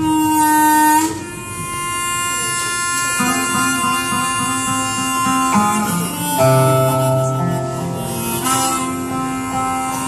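Small acoustic folk band playing the opening of a song: long held melody notes that change pitch every second or two, sometimes several together, over acoustic guitar and upright bass.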